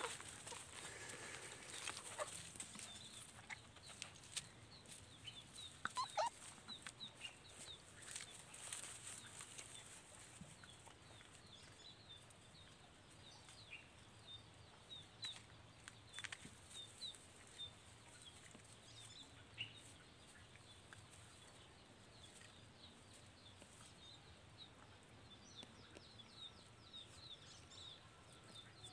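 Faint yard ambience: scattered light ticks and chirps, with a few short calls from poultry, the clearest about six seconds in.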